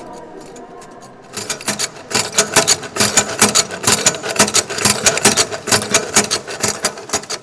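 A kinetic machine sculpture of aluminium linkages, threaded brass rods and wooden frames running, with a rapid, uneven clatter of knocks and clicks, several a second, starting about a second in.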